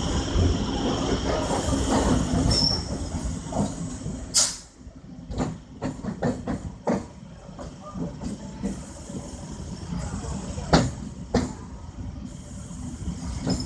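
MEMU electric multiple unit train running past with a dense rail rumble. The rumble ends abruptly about four seconds in with a sharp, high crack, followed by scattered clicks and knocks.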